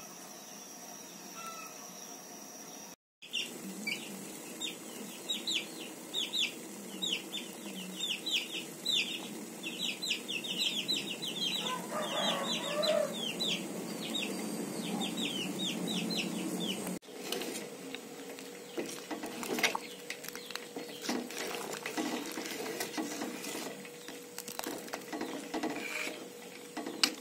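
Chicks peeping in rapid series of short, falling chirps through the first half. After a cut, liquid simmering in a metal pot, with scattered clicks of a spoon stirring against the pot.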